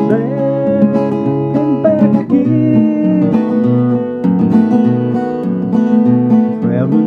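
Acoustic guitar strummed, playing chords in a steady rhythm with no singing.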